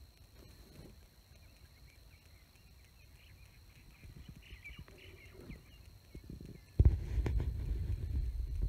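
Faint, scattered bird calls in the brush, then about seven seconds in a sudden low rumble with knocks and bumps from the camera being handled and moved.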